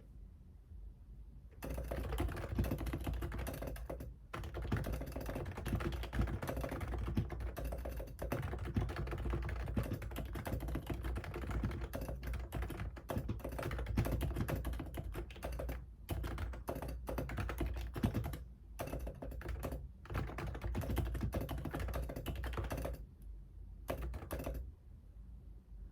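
Typing on a computer keyboard in fast continuous runs of key clicks. It starts about two seconds in, breaks off briefly a few times, and thins to a couple of short bursts near the end.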